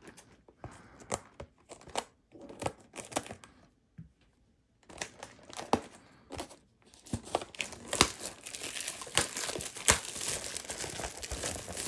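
Plastic shrink-wrap being cut and peeled off a Magic: The Gathering booster box, crinkling and tearing. The crackles come scattered at first, then become dense crinkling in the second half with a couple of sharp cracks.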